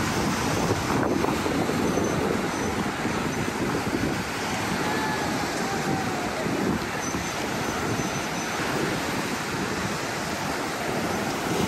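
Wind buffeting the microphone over a steady wash of surf breaking on the beach.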